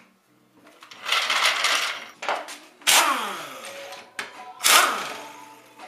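Pneumatic impact wrench running in several short bursts on a wheel's lug nuts, each burst trailing off in a falling whine as the tool spins down.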